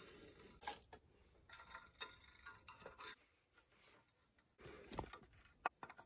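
Faint, scattered clicks and taps of small metal parts being handled as a pressure gauge and Pressuretrol are refitted on a steam boiler, with near quiet in between.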